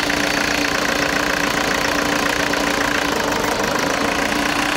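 Kia Bongo 3's D4CB 2.5-litre four-cylinder common-rail diesel idling steadily with a knock. This is a cylinder-cut test: injectors are unplugged one at a time to find the faulty one behind the knocking and black smoke.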